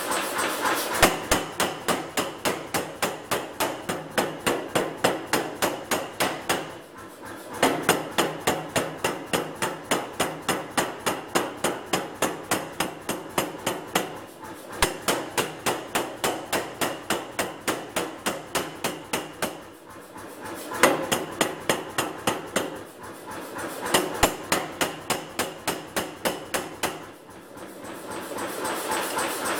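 Power hammer striking a glowing steel bar in a tong-forming die, about four blows a second, in runs of several seconds broken by a few short pauses. This is the forging of a blacksmith's tong jaw and boss in one heat.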